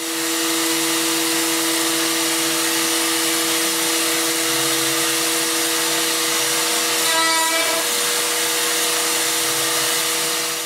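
CNC router carving a foam surfboard blank: a steady two-tone spindle whine over the rush of the dust-extraction hose. A brief higher tone rises above it about seven seconds in.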